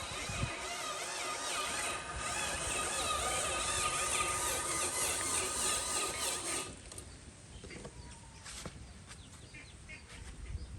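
Small electric motors and gears whining, with wavering pitch, as a radio-controlled construction model works; the whine cuts off suddenly about two-thirds of the way through, leaving faint clicks and knocks.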